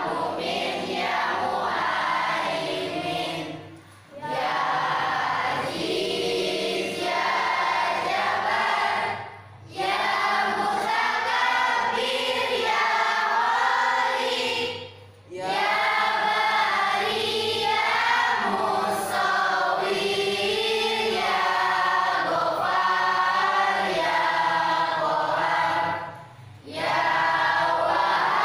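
A class of teenage students, girls and boys, singing together as a group, in sung lines separated by four short breaks.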